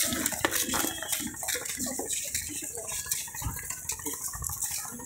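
Outdoor crowd ambience: scattered voices of people walking close by, over a steady hiss, with a couple of low thumps a few seconds in.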